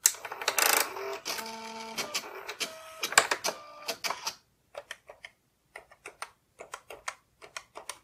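Canon Typestar 10-II thermal typewriter switched on with a click, then its carriage motor runs for about four seconds with a few stepped tones as the machine resets. After that come scattered short key clicks as its keyboard is typed on.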